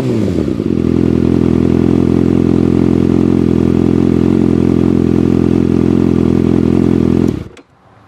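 Kawasaki Ninja inline-four sportbike engine through an M4 slip-on exhaust. The revs fall back from a blip to a steady idle, and the engine is switched off near the end, cutting out abruptly.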